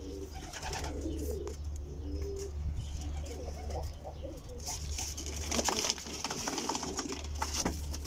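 Domestic pigeons cooing low in a cardboard box, with cardboard rustling and knocking in the second half as a hand reaches in among them.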